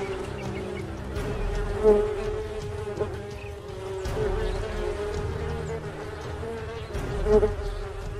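A swarm of wasps buzzing: a steady droning hum that swells louder about two seconds in and again near the end.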